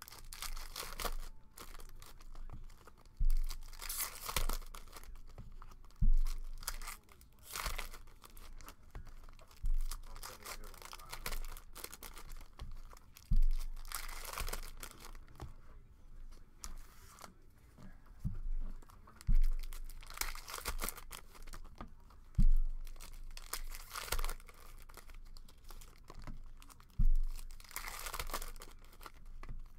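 Foil trading-card pack wrappers from a 2009 Topps UFC hobby box being torn open and crinkled by hand, one pack after another. Dull thumps come every few seconds among the crackling.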